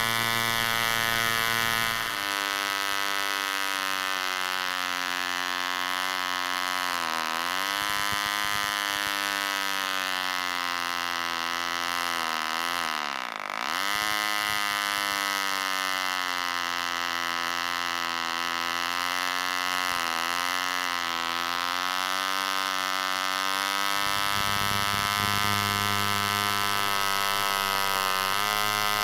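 1940s Bantam 19 two-stroke spark-ignition model engine running at high speed on a 9x6 wooden propeller, a steady high-pitched buzz. Its pitch sags about 7 seconds in, dips more deeply about 13 seconds in, and picks back up each time.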